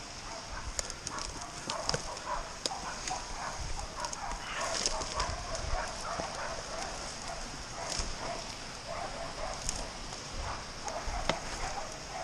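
Intermittent animal calls from a pig-hunting dog holding a pig at bay (bailing), over rustling and footsteps through scrub.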